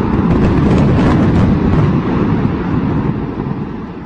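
Deep rumble of a large arena's roof and steel frame collapsing in a demolition implosion, with a few crashes of falling debris in the first second or so, then fading away over the last two seconds.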